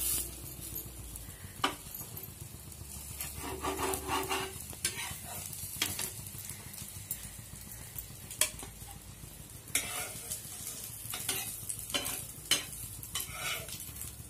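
Bread omelette sizzling on a tawa while a steel spatula scrapes and clicks against the pan, cutting the omelette and lifting the pieces off.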